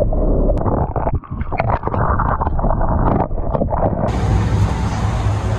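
Muffled underwater sound from a camera held under the water in a tank of live spiny lobsters: water sloshing, with short knocks and scrapes. About four seconds in, the sound opens up suddenly into a steady hiss over a low hum.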